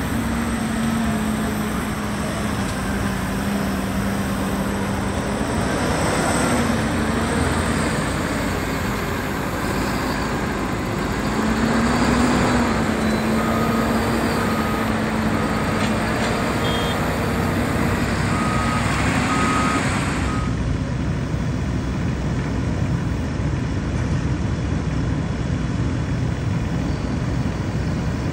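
Diesel engines of heavy earthmoving equipment running, their pitch shifting a little with load. A reversing alarm beeps steadily for several seconds after the middle.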